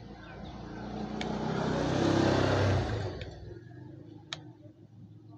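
A motor vehicle's engine passing by, swelling to a peak in the middle and fading away over about three and a half seconds. A few light clicks from a small tool on the coil wires.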